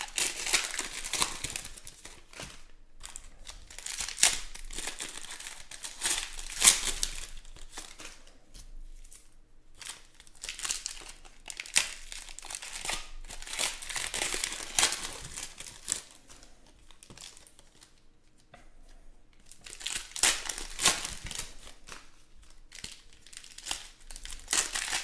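Foil trading-card packs (2020 Panini Chronicles Baseball) crinkling and being torn open by hand, in repeated bursts of crackly rustling with short pauses between.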